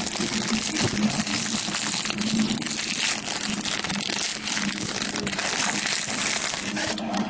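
Plastic wrapping of a trading card pack crinkling and rustling as it is handled and torn open by hand.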